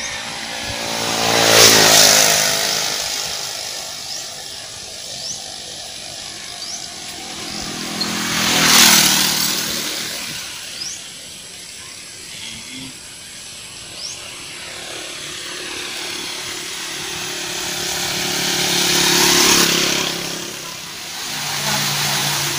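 Small motorcycle engines passing by on a road, three pass-bys about two, nine and nineteen seconds in, each swelling up and fading away.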